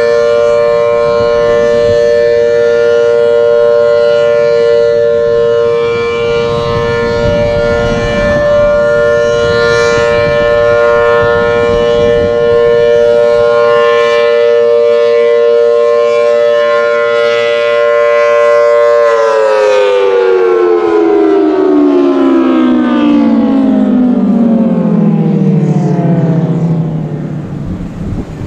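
Federal Signal Thunderbolt 1000T outdoor warning siren sounding its monthly test: a steady, loud two-note tone that, about two-thirds of the way through, starts winding down, its pitch sliding steadily lower as the rotor slows.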